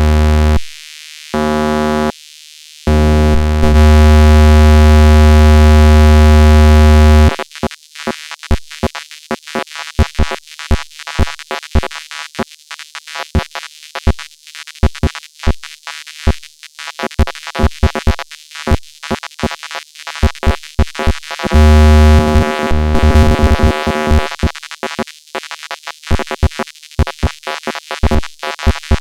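Synthesized robotic sound effects. It opens with a loud, steady, buzzing tone that cuts out briefly twice. About seven seconds in it turns to a rapid, irregular chatter of short electronic blips and clicks, broken by another buzzing stretch a little past the middle.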